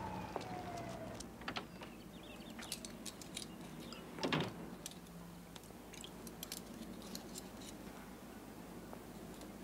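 Light clicks and clinks of small objects being handled at a kitchen counter, with one louder rattle about four seconds in. A falling tone dies away in the first second.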